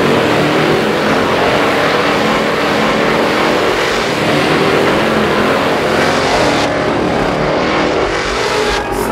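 Supercharged 6.2-litre Hellcat Hemi V8 running hard at full throttle through a drag-strip pass. The sound turns duller about seven seconds in.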